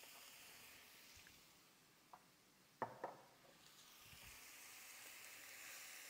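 Faint sizzle of diced chicken and onions frying in butter and oil in a pan. It dips briefly in the middle and builds again in the second half, with a couple of sharp clicks about three seconds in.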